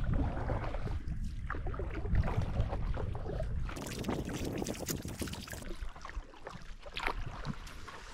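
Kayak paddles dipping and splashing in the river water, with wind rumbling on the microphone; the splashing is loudest for a couple of seconds around the middle.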